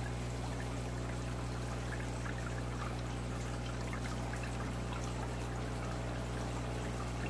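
Hatchery water trickling steadily through a coffee filter into a bottle, with brine shrimp caught in the filter, over a steady low hum.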